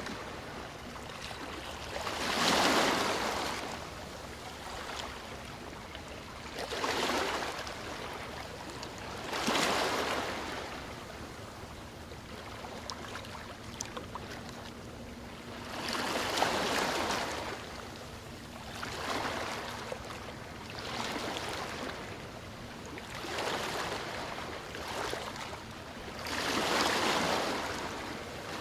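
Sea waves breaking on a shore: about eight swelling rushes of surf a few seconds apart, with a low hiss of water between them. The first, about two seconds in, is the loudest.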